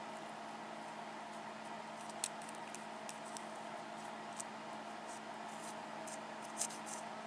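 Faint, sharp little clicks and ticks from the reloaded pins and plug of a disassembled ABUS 72/40 brass padlock being handled, scattered irregularly over a steady low hum.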